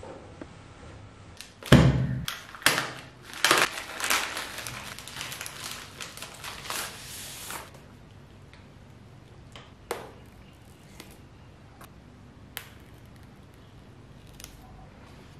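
Hands handling a smartphone retail box and its packaging: a loud knock about two seconds in, more knocks and several seconds of crinkling. After that comes quieter handling with a few light clicks while the box's paper tear strip is pulled.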